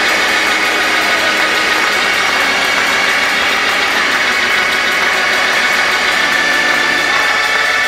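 Loud, steady church praise music: sustained held tones under a dense din of congregation noise, with a tambourine being shaken.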